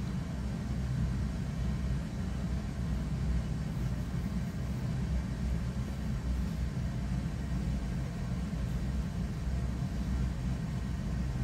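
Steady low background rumble that runs on without change, with no clear single event in it.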